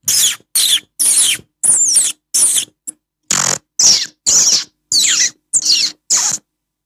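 Rat-like squeaking: about eleven short, high squeaks in a row, each sliding down in pitch.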